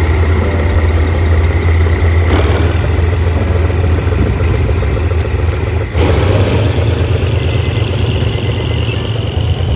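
A vehicle engine running steadily and heard close, with a strong low hum and rumbling noise.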